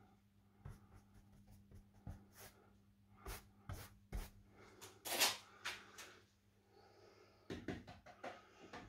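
Faint rubbing and scraping of a dry paintbrush on a painted wall, with scattered light clicks and one louder scrape a little after five seconds in, over a low steady hum.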